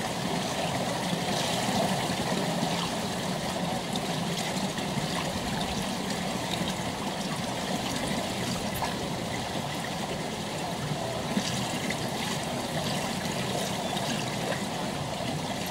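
Pool water trickling and running steadily.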